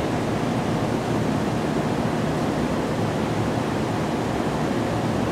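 Steady, even hiss of room noise, with a faint low hum underneath.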